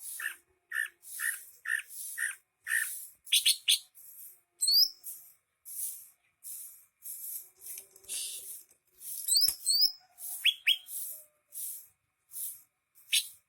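Cucak hijau (green leafbird) singing in full voice. It opens with a run of six evenly spaced notes, then moves into a varied song of quick rising whistles and scratchy high chatter. A single sharp click comes about nine and a half seconds in.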